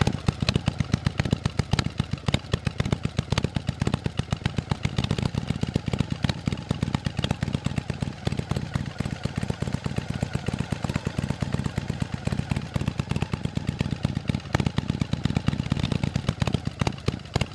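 Harley-Davidson V-twin engine running near idle through an Akrapovic exhaust, a steady string of sharp, loud exhaust pulses.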